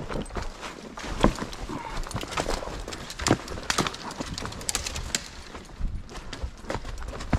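A ridden horse's hooves stepping through deep dry leaf litter and sticks on a slope, with irregular crunching of leaves and sharp snaps of twigs underfoot.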